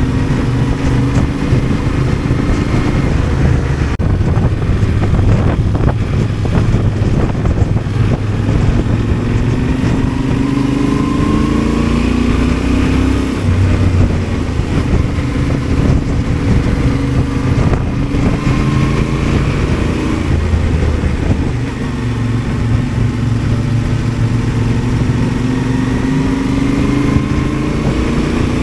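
Yamaha Ténéré 700's parallel-twin engine running at road speed, its revs rising and falling several times as the rider accelerates and eases off, over steady wind and road noise.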